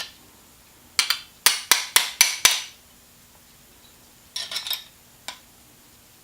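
Metal parts of a GM NP246 transfer case selector fork assembly clicking and clinking as they are worked and tightened together by hand. About a second in there is a quick run of five sharp metallic clicks, about four a second, and a shorter cluster of clicks follows a couple of seconds later.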